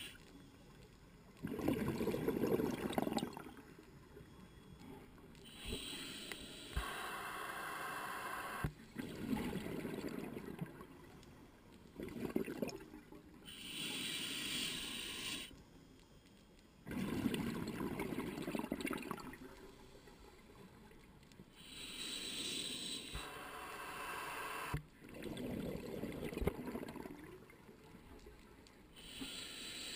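Scuba diver breathing through a regulator underwater: a short hiss of each inhale through the demand valve, then a longer, louder bubbling of exhaled air leaving the exhaust. The breaths are slow and even, about one every eight seconds, four in all.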